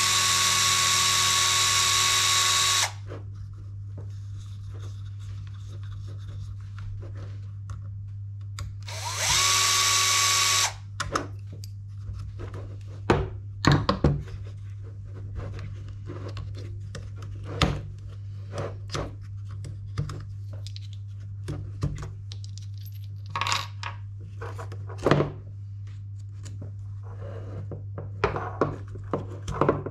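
Cordless electric screwdriver running at a steady pitch, backing out screws from the RC buggy's front shock mounts: one run of about three seconds at the start and a shorter one about nine seconds in. Between and after the runs come scattered light clicks and knocks of small parts being handled, over a steady low hum.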